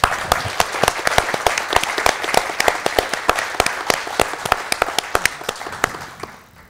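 A congregation applauding, many hands clapping at once, dying away about six seconds in.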